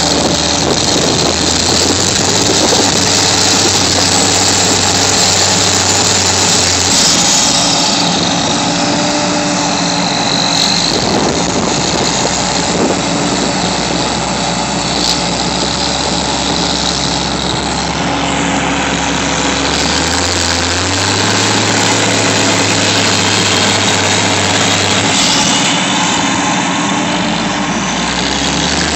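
Large diesel engines of a John Deere four-wheel-drive tractor and a combine running hard under load as the tractor pulls the combine out of mud. The engine note shifts down about seven seconds in and climbs back up about twenty seconds in.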